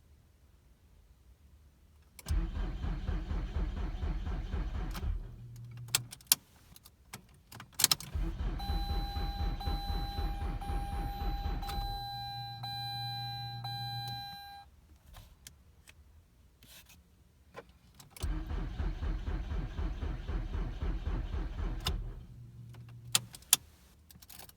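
2003 Mazda 6 engine cranking on the starter three times, a few seconds each, turning over rhythmically but never catching. This is a crank-no-start fault that new spark plugs and new crankshaft and camshaft sensors have not cured. Key clicks come between the attempts, and a steady high tone sounds through and after the second attempt.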